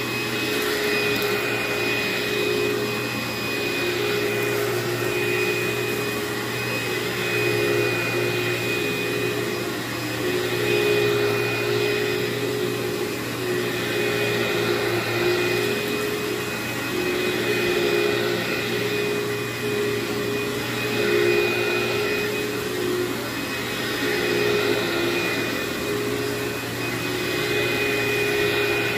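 Upright vacuum cleaner running steadily as it is pushed over carpet, its motor holding a steady whine with the level swelling and easing a little.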